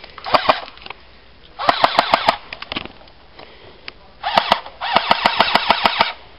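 Airsoft guns firing on full auto in short bursts of rapid clicking shots. There are about four bursts, and the longest runs about a second near the end.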